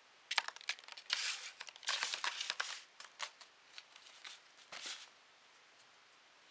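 Foil ball crinkling and rattling against a cardboard box as a cat paws at it and scrabbles in the box: a quick string of crackly rustles, thickest between one and three seconds in, fading out after about five seconds.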